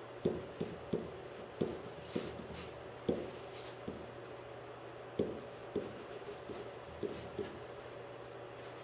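Pen strokes tapping and knocking on a whiteboard as a chemical equation is written: about a dozen short, irregular taps over faint room hum.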